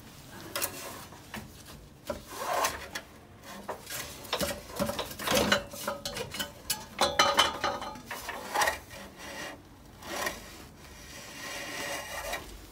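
Porsche 997 Carrera 4S exhaust pipework being worked loose by hand: rusty metal scraping and rasping in irregular strokes, with short knocks as the section shifts.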